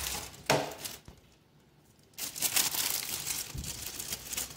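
Plastic bag of boxed brownie mix crinkling as it is handled, with a sharp click about half a second in, a short pause, then more crinkling.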